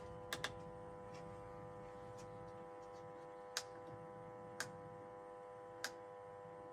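Steady electrical hum with a few sharp clicks over it: a quick double click near the start, then single clicks about a second apart, typical of switches or buttons on a vehicle's electrical control panel being pressed.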